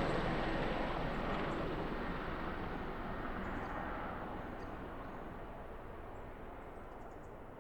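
Helicopter flying away, its rotor and engine noise fading steadily into the distance.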